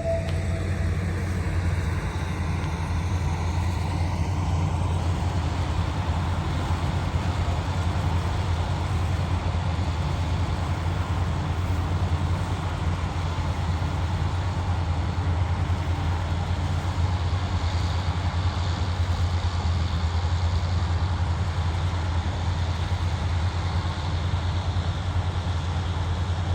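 An engine running steadily at a constant speed: a low, even drone that does not change.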